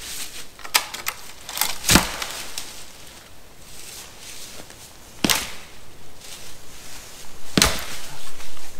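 Dead wood being broken up: a quick run of four sharp wooden cracks and knocks, the loudest about two seconds in, then two more single knocks a couple of seconds apart.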